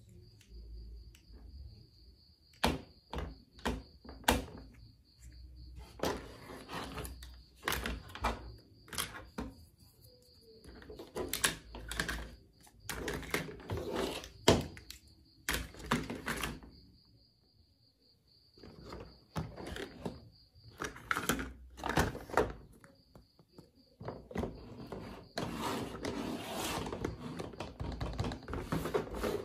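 Hard plastic toy doctor-set pieces handled against a plastic Hello Kitty carry case: irregular clicks, taps and knocks, with a longer stretch of steady rubbing near the end.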